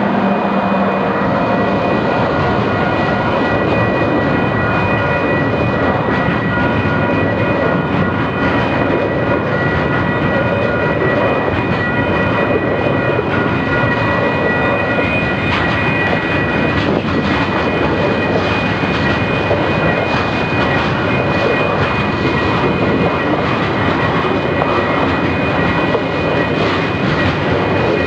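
A train running close by: a loud, steady rumble with several steady high-pitched tones over it.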